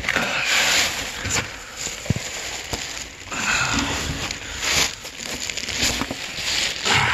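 Close-up rustling and scraping of someone moving about on hands and knees in a crawlspace, with a few short knocks.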